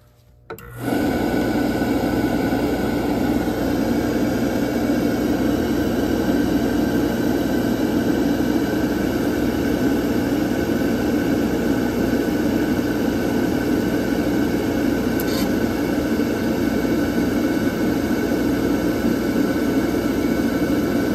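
A newly rebuilt Beckett AFII oil burner, with a new motor and fuel pump, starts up suddenly about a second in and then runs steadily, while its pump pressure is being set.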